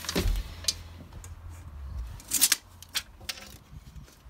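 Light, scattered clicks and taps from a steel tape measure being pulled out and held against a vinyl plank floor, with a small cluster of clicks about halfway through.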